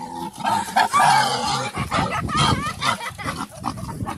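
An animal calling: a busy run of short cries, with knocks and clatter between them.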